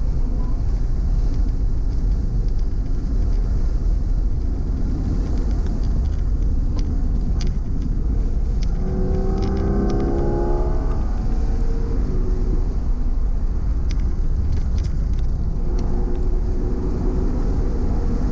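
Porsche at speed on a race track, heard from inside the cabin: a steady low rumble of engine, tyres and wind. About halfway through, the engine note falls as the car slows into a corner, then picks up again as it accelerates out.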